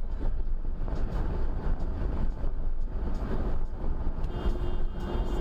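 Steady road and wind noise heard from inside a car's cabin at highway speed, a constant low rumble. A faint steady tone joins in near the end.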